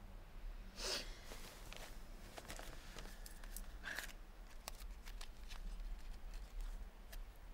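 Faint rustling and scattered light clicks of a cigarette pack being handled as a cigarette is taken out, with a low room hum; one sharp click right at the start.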